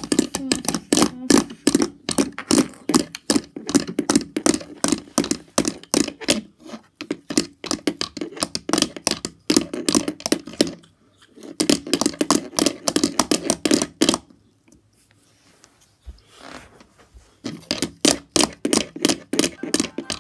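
Rapid clacking and knocking of hard plastic toy horse figures being galloped and handled close to the microphone, in runs of many clicks a second with a pause of a few seconds about two-thirds of the way through.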